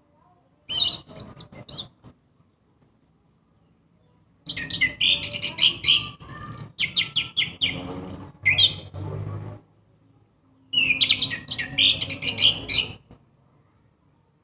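Orange-headed thrush (anis merah) singing its loud, varied song in three bursts of quick, changing notes. The middle burst is the longest, about five seconds.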